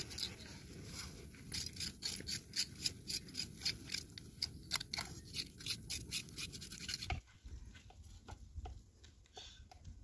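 Hands scratching and rubbing quickly at a dark bird carcass on a metal plate, a run of rapid scratchy strokes, about three or four a second, that stops about seven seconds in and gives way to a few faint scrapes.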